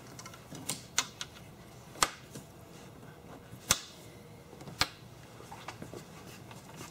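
Light, sharp clicks and snaps at irregular intervals, about half a dozen, as the sunshade's side straps are hooked onto the small hooks along the Jeep's roof rail.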